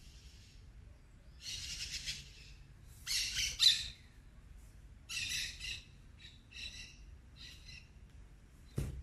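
A bird calling in a series of about six short, rapidly pulsed calls, each under a second, the loudest about three and a half seconds in. A single sharp knock comes near the end.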